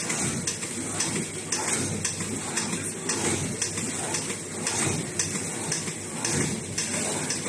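Paper tube making machine running, a steady mechanical clatter with repeated short clacks about twice a second.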